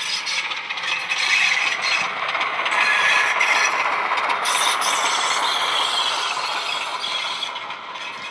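Model Class 25 diesel locomotive with DCC sound passing close by: the decoder's diesel engine sound through its two small EM1 speaker drivers, mixed with the clicking rattle of the model's wheels and mechanism on the track. It grows louder about a second in as the loco passes, then eases off as the coaches follow.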